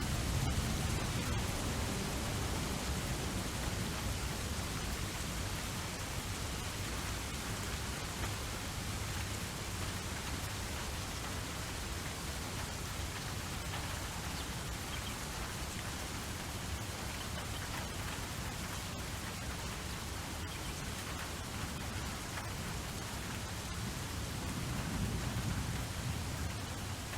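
Steady rain falling, a continuous hiss of drops, with a low rumble swelling up about a second in and again near the end.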